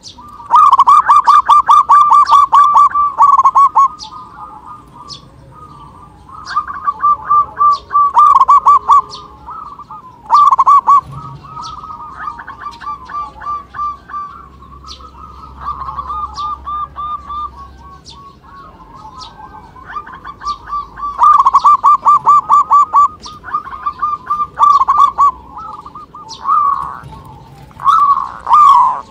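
Zebra doves (perkutut) singing: repeated bouts of rapid staccato cooing notes, some loud and close, others fainter, with short pauses between bouts.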